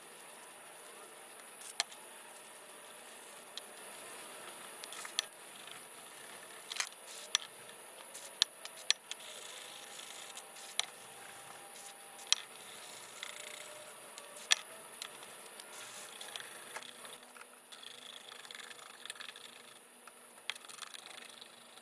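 Scattered light clicks and knocks of small metal stove parts being handled and set down, a dozen or so at uneven intervals, the sharpest about two-thirds of the way in, over a faint steady hiss.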